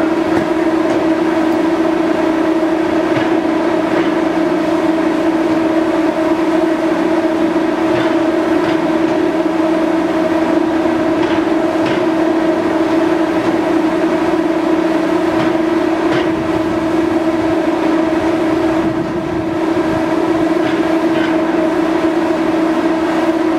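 Steady, loud drone of a docked ferry's machinery, a constant low hum with overtones, with a few short knocks over it.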